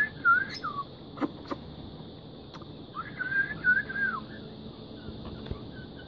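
Parakeet whistling: two wavering whistled phrases, the second starting about three seconds in, with two sharp clicks between them and faint short chirps near the end.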